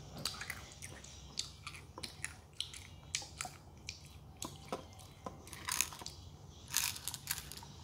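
Irregular sharp crunches and clicks close to the microphone: candy-coated chocolate sunflower seeds being chewed, with a small plastic container with a red lid handled, denser clattering about five and a half and seven seconds in.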